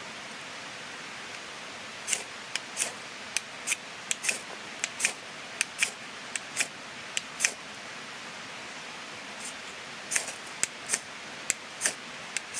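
Repeated short, sharp scraping strikes of a fire starter at a Trangia spirit burner, about two dozen in two runs with a pause between: several tries before the stove lights. A steady hiss of running stream water lies under them.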